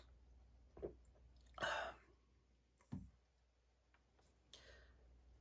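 A man drinking beer from a tall glass: quiet sips, a short breathy exhale, then the glass set down on the bar top with a knock about three seconds in.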